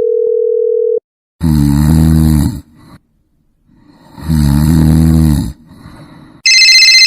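A steady electronic beep tone for about a second, then two drawn-out cow moos about three seconds apart. Near the end, a loud, fast-pulsing electronic ringing like a telephone ring begins.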